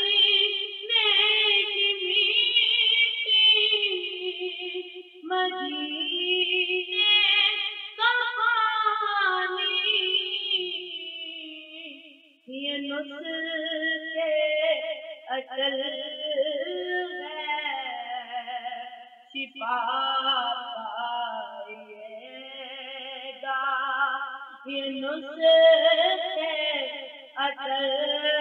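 A solo voice singing an Urdu naat in long, ornamented melodic phrases, with no instruments heard and short breaths between phrases.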